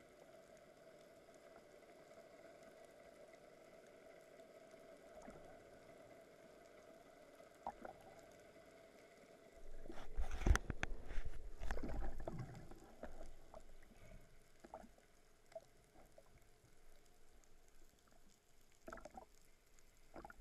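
Underwater: a faint steady hum, then about halfway through loud low thumping and rushing as a speared Atlantic bonito thrashes on the spear shaft, easing into scattered knocks.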